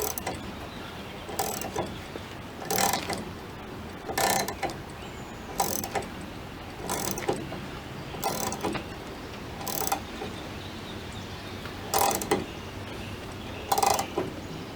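Short-handled ratchet wrench with a three-quarter-inch socket clicking on each return stroke, a burst about every second and a half, as it turns the VW Beetle hinge pin removal tool and slowly presses the old door hinge pin out.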